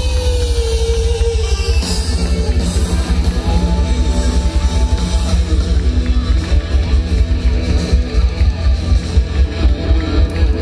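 Live rock band playing loud through the PA: electric guitars over a drum kit keeping a steady beat.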